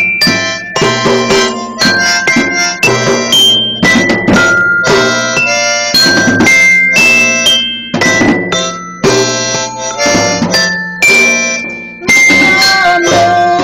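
Improvised instrumental music: a rhythmic run of struck or plucked chords whose notes quickly die away. Near the end a held, wavering melody line comes in over them.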